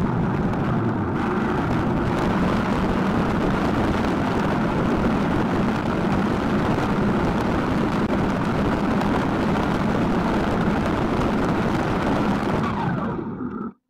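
Snowmobile running steadily at speed: an even engine and track noise. It fades out near the end.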